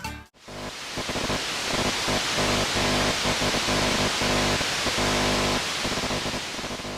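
Background music: after a brief drop, a steady hiss-like wash of noise over soft sustained low notes, fading out near the end.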